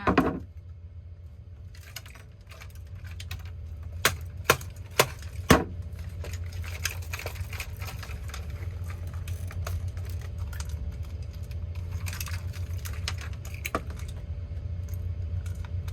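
Knocks and clicking rattle of the broken plastic alarm clock's pieces: one loud sharp knock just after the start, then four sharp knocks about half a second apart around four to five and a half seconds in, and scattered lighter clicks over a steady low rumble.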